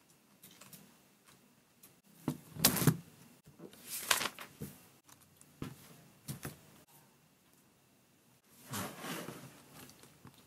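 Plastic LEGO Technic parts of a built Jeep Wrangler model clicking, knocking and rattling as the model is handled and worked on. There are several short bursts, the loudest a few seconds in, and a longer stretch of rubbing and rattling near the end.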